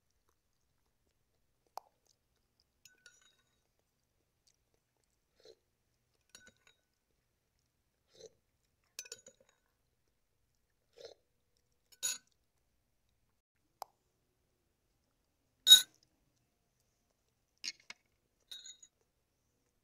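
Metal spoon clinking now and then against a ceramic soup bowl, with soft mouth sounds of eating between the clinks; the sharpest clink comes about three-quarters of the way through.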